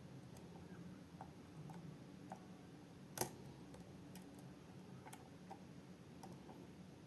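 Faint, scattered small clicks of metal lock picks and a tensioner being handled, with one sharper click about three seconds in.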